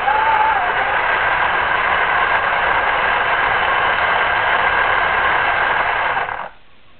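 Small electric motor and gears of a remote-controlled vehicle running under power, a steady whir that cuts off sharply about six and a half seconds in.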